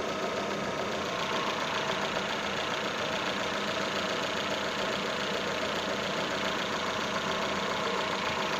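Datsun on-DO engine idling steadily, with a faint whistle from the alternator drive belt, the sign of a slipping belt.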